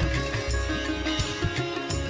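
Instrumental background music: a plucked-string melody over a low, pulsing beat.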